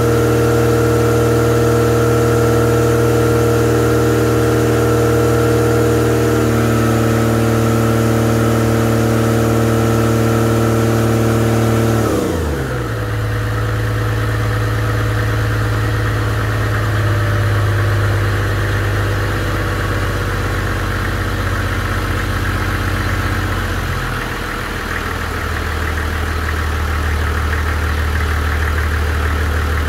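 Freshly rebuilt Toyota 1HZ 4.2-litre straight-six diesel running on its first checks, held at a raised speed and then dropping back to a lower idle about twelve seconds in. It settles a little further near the end.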